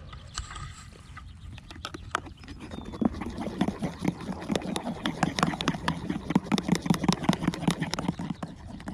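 A metal teaspoon stirring coffee in an enamel mug, clinking rapidly against the mug's sides. The clinks start about two and a half seconds in, come several a second, and go on nearly to the end.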